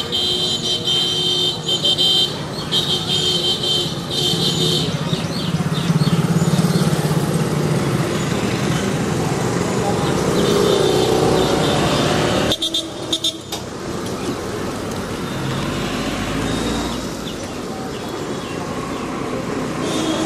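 Busy street-market ambience: scooters and motorcycles running past, general traffic, and a crowd of indistinct voices, with high-pitched tones sounding on and off in the first five seconds. The sound drops out briefly about twelve and a half seconds in.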